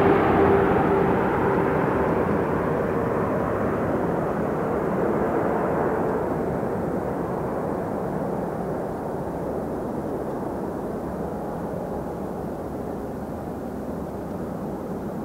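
Jet noise from a Boeing 777-300ER's twin GE90 engines as the airliner moves away: a steady rushing rumble that slowly grows quieter and duller. A faint whine dies out in the first couple of seconds.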